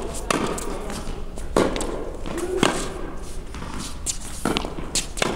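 Tennis ball being hit back and forth with racquets, among them an extended Yonex V Core Pro, and bouncing on a hard court: sharp pops every second or two, echoing in a large indoor hall.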